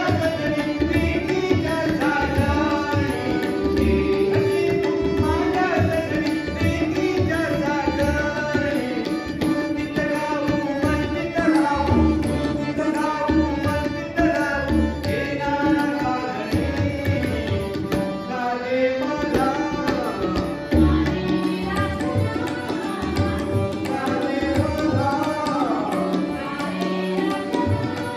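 A song with tabla accompaniment: a voice singing a melody over a steady tabla rhythm.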